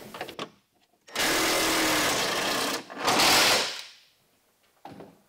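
Cordless drill running on a screw in a wooden crate board: one steady run of about a second and a half, then a shorter second run. A few light handling clicks come before it and a small knock near the end.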